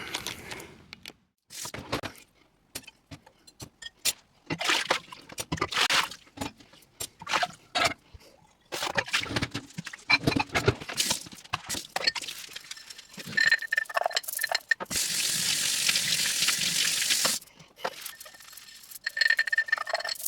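Scattered clicks and clinks of parts being handled, then water running steadily for several seconds from about twelve seconds in before cutting off suddenly, with a brief return near the end: a used cold air intake filter being rinsed clean.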